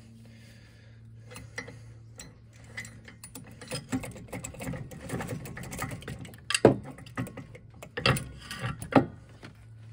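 Steel bolt-type puller's forcing bolt being cranked down with a wrench against a small engine's flywheel: rapid, ratchet-like metallic clicking. Several loud sharp metal knocks come in the last few seconds as the flywheel is drawn off its shaft.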